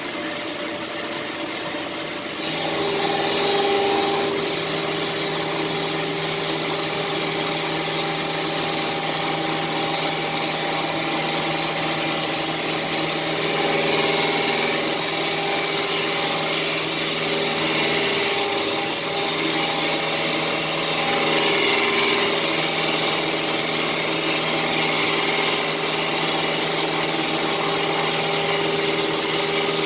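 Machine tool running steadily with a constant hum and a dense hiss, typical of a CNC machine cutting, stepping up in level about two seconds in.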